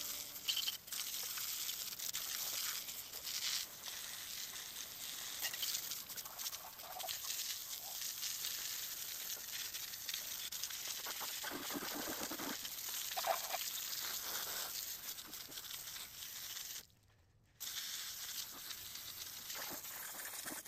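Pressure-washer spray hissing and spattering against a V8 engine block, with a short break about three-quarters of the way through.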